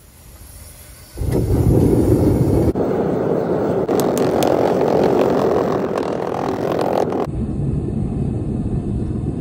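Loud, steady rushing roar that starts about a second in, with abrupt jumps in its sound at cuts near three, four and seven seconds in.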